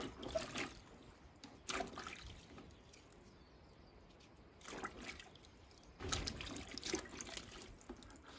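Fresh fava bean pods being swished and splashed by hand in a basin of water, in a few short bursts of sloshing, the longest near the end.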